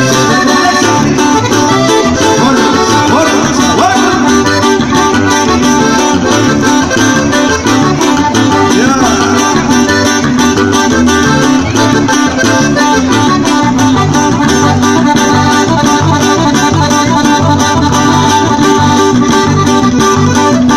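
Live band playing a cumbia, with accordion, guitar, congas and a pulsing bass line.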